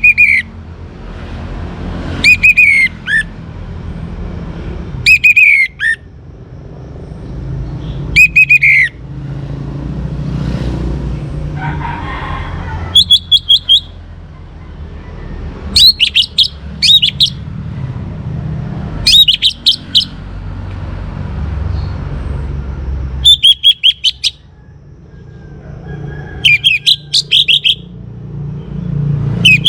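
Orange-headed thrush (anis merah) singing: short, loud whistled phrases about a second long, repeated every few seconds, pitched higher from a little under halfway through. A steady low hum runs underneath.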